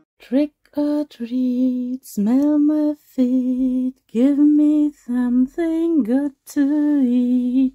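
A woman singing a simple tune unaccompanied, in held notes of about half a second to a second with short breaks between them.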